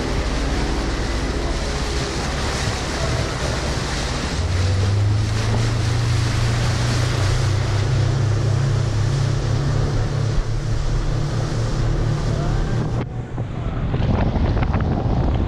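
Motorboat under way at speed: a steady engine drone that creeps slightly up in pitch, under rushing water from the wake and heavy wind noise on the microphone. The high wind hiss drops away abruptly about two seconds before the end.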